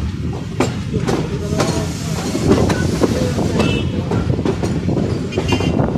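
Passenger train carriage wheels running over rail joints and points with a steady rumble and an irregular clickety-clack of sharp clacks. Two brief high-pitched squeals come in, about three and a half seconds in and again near the end.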